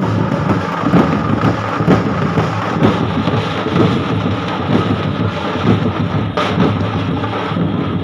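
Loud, distorted drumming, a dense run of beats under a rumbling roar.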